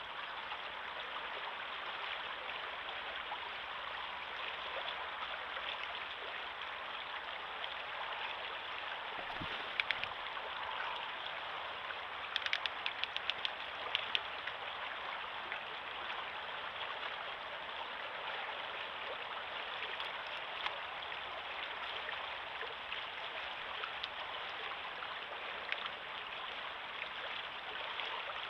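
River water flowing past the bank, a steady rushing. A couple of sharp ticks come about ten seconds in, and a quick run of ticks about twelve to fourteen seconds in.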